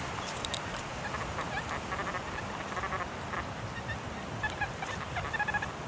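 XP Deus metal detector giving tones as its coil is swept: scattered short blips, then from near the end a quick run of short, evenly repeated beeps as it passes over a target, here a coin lying on the surface.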